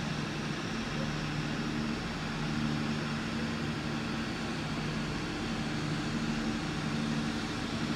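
Heritage passenger train's carriages rolling slowly past along the platform, under a steady mechanical drone with a few low hums that come and go.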